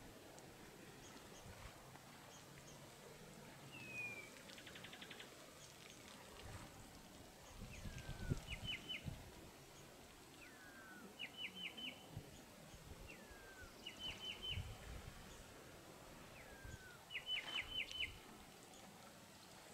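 A small bird repeating a short song phrase every few seconds: a falling slurred whistle followed by a quick run of three to five higher notes. Faint low rumbling and a few soft low thumps lie beneath it.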